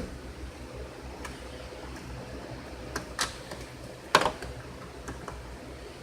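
Scattered light clicks and knocks of hands working wiring loose inside an HVAC unit. The loudest knock comes about four seconds in, over a steady low hum.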